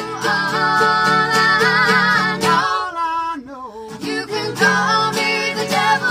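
Live acoustic band: two acoustic guitars and a mandolin strummed under female and male voices singing held, wavering notes in harmony. The music drops away briefly about three seconds in and comes back in about a second and a half later.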